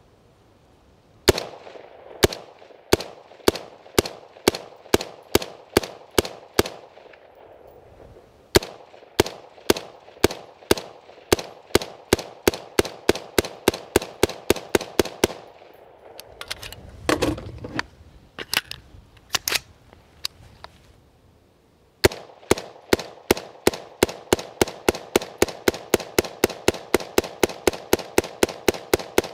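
BCM AR-15 rifle firing semi-automatic in long strings of shots, at about two to three a second and later about four a second. There is a short break partway through and a longer one in the middle. The rifle is unlubricated and caked in carbon, and it keeps cycling every round although the shooter calls it sluggish.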